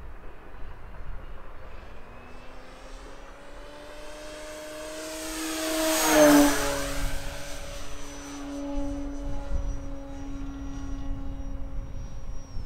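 Radio-controlled model airplane making a low pass: its propeller hum grows louder, peaks about six seconds in as it goes by, and drops slightly in pitch as it flies away. A thin high motor whine runs over it.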